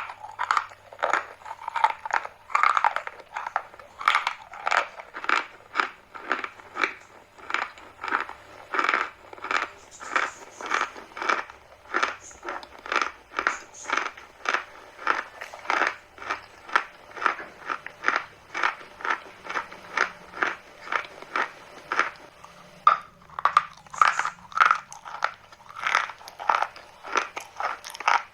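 Chalk being bitten and chewed: a steady run of crisp crunches, about two a second.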